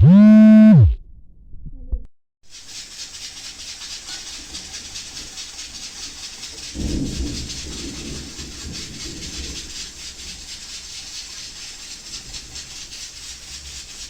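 A short, loud electronic tone that glides up and falls away, then a steady hiss that continues to the end, with a brief low rumble about seven seconds in.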